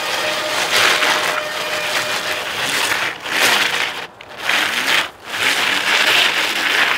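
Screw-studded mountain bike tyres crunching and grinding over ice as the bike is pedalled hard, the metal studs biting into the surface. It comes as one long scrape followed by three shorter surges.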